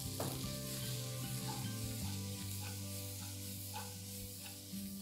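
Chopped red onions sizzling as they fry in hot oil in a wok on high flame, with the wok tossed to move them around, over soft background music.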